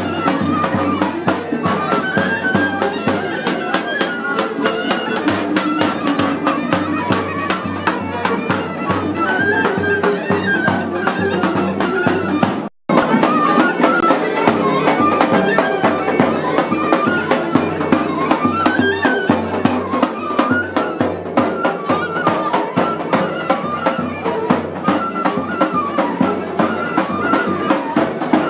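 Bagpipe playing a folk melody over a steady drone. The sound drops out completely for a split second about 13 seconds in, then the tune goes on.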